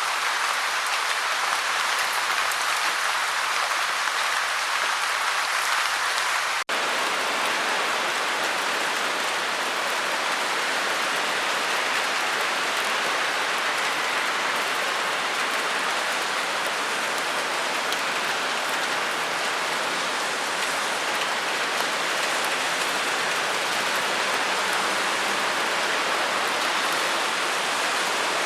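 Rainwater splashing in a rain gutter, a steady even rush of noise. About seven seconds in it drops out for an instant and comes back slightly deeper.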